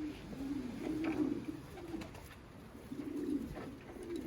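Racing pigeons cooing: a run of low, rounded coos, with a pause of about a second before the last few.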